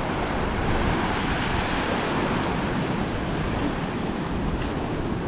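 Small waves breaking and washing up a sandy beach: a steady rush of surf, with wind on the microphone.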